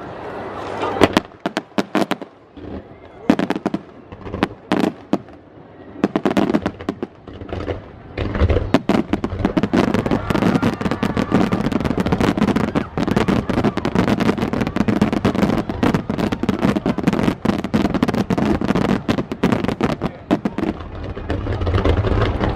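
Aerial fireworks shells bursting overhead: a few separate loud bangs at first, then from about eight seconds in a dense barrage of bangs and crackling with a rumble underneath.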